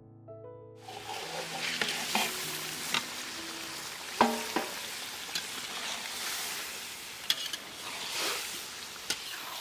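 Fish pieces sizzling in hot oil in a metal wok while a metal spatula stirs them, scraping and clicking against the pan. One clink about four seconds in rings briefly.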